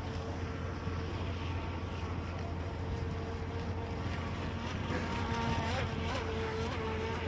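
Small RC speedboat's electric motor whining steadily over the water, with a few brief wobbles in pitch as the throttle changes, over a steady low rumble.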